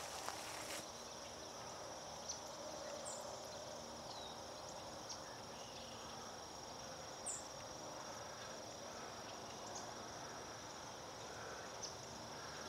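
Steady, high-pitched trilling of insects in autumn grass, with a couple of brief high chirps over it.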